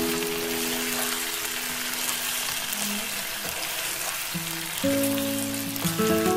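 Beef pieces frying in hot oil in a pan as they are stirred with a wooden spatula: a steady sizzle. Soft background music plays under it and swells again about five seconds in.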